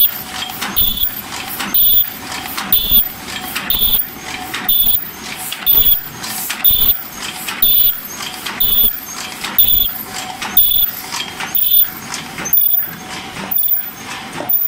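Open-cam paper cup forming machine running at about 70 cups a minute: a steady mechanical clatter that repeats a little faster than once a second, each stroke carrying a brief high-pitched tone.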